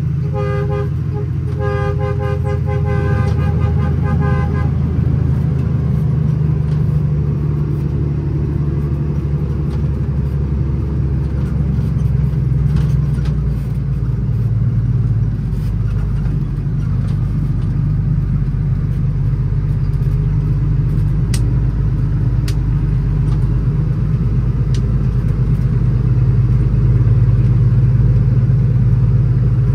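International ProStar truck's Cummins ISX diesel engine running steadily under way, a deep constant drone. During the first few seconds a pitched horn toots in a run of short blasts over it.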